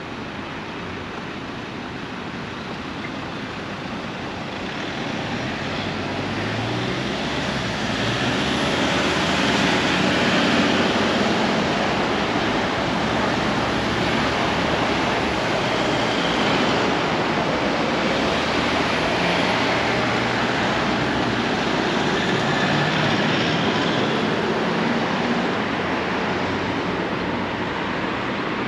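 Road traffic on a busy multi-lane road, a steady rush of tyres and engines. It grows louder a few seconds in and eases slightly near the end.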